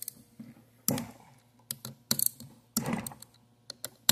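Hand ratchet wrench clicking in short bursts as it is swung back and forth, loosening the mounting screws on a pressure-washer pump.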